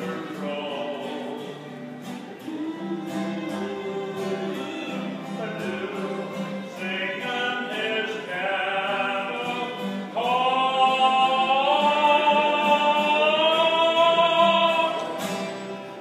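Acoustic guitar strummed in a steady rhythm under a fiddle and a man's singing, closing with a long, loud held note that fades in the last second or so.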